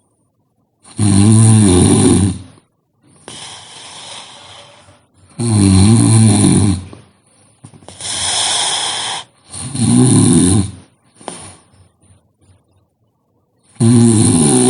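A sleeping person snoring: loud, low snores about every four seconds, each followed by a softer, breathy out-breath.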